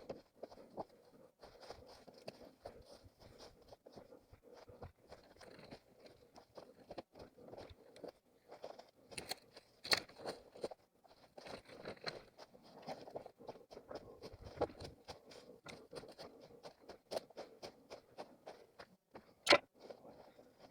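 Footsteps crunching irregularly through dry leaf litter and twigs underfoot, with a few sharper, louder snaps or knocks about ten seconds in and near the end.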